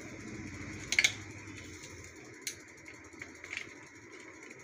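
Sharp plastic clicks and knocks of an HP LaserJet toner cartridge's drum and housing being handled and fitted together. The loudest cluster comes about a second in, with a few lighter single clicks after.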